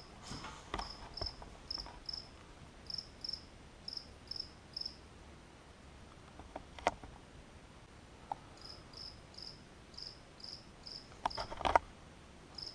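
Cricket chirping, short high chirps about two or three a second, pausing for a few seconds midway, then starting again. A few sharp knocks, the loudest cluster near the end.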